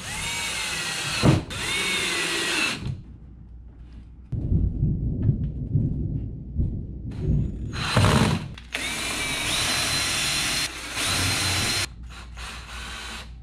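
Cordless drill driving screws into wood in two long runs, its motor whine rising in pitch as it spins up. Between the runs, a low rumble of thunder.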